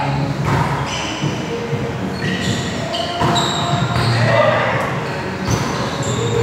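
Volleyball rally on an indoor court: players' voices calling out, with several sharp hits of the ball, echoing in a large gym.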